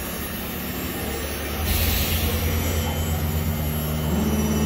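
Automatic cotton candy vending machine running as it spins candy floss onto a stick: a steady low motor hum that grows louder about a second and a half in and again near the end, with a short burst of hiss about two seconds in.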